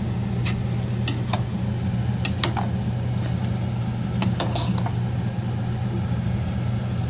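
Kitchen utensils and dishware clinking: several short, sharp clinks in small quick groups, each ringing briefly, over a steady low hum.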